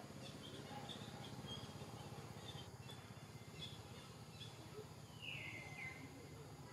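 Faint forest ambience with birds chirping here and there, and one louder falling call about five seconds in.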